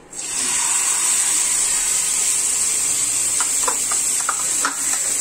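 A yogurt-marinated katla fish piece laid into hot oil in a frying pan, setting off a sudden loud sizzle that holds steady. Scattered spits and crackles join in over the second half.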